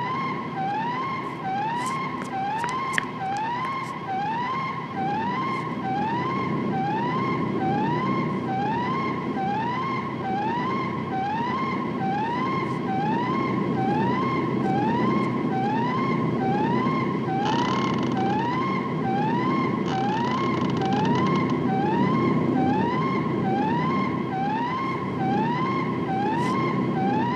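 Whooping alarm siren sounding over and over, a rising tone about once a second, over a steady low machinery rumble. A few sharp clicks come in the first seconds, and a burst of hiss runs for a few seconds just past the middle.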